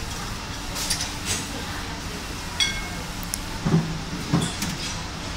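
Filter integrity tester running a bubble point test: a steady low hum with a few sharp clicks, and a short ringing metallic clink about two and a half seconds in.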